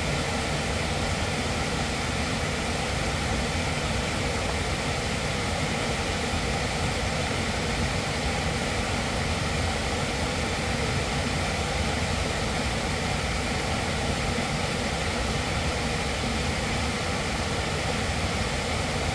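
Waterfall cascading over rocks: a steady, unbroken rush of falling white water.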